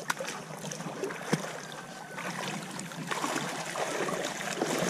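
Shallow seawater splashing and sloshing around a person's legs as he wades, with a sharp knock about a second in.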